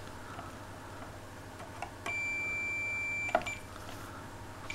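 A digital multimeter, a Fluke, gives a single steady high-pitched beep lasting a little over a second, with a sharp click just after it ends. It comes as the probes go to the shower's heating element terminals.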